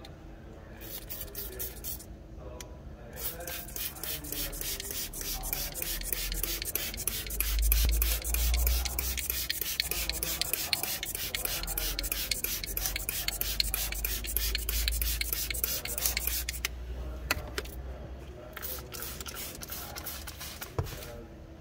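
Hand scrub brush scrubbing a cloth car seat with fast back-and-forth strokes, working cleaner into the upholstery fabric. The scrubbing starts about a second in and stops about sixteen seconds in, followed by a few shorter spells of scrubbing.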